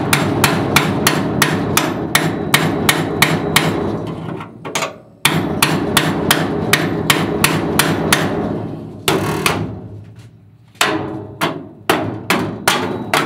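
Hammer driving a cold chisel through the rusted sheet-steel floor pan of a VAZ 2121 Niva: rapid metallic blows about three a second, with a steady ring between them. The blows stop twice, the second lull longer, then resume.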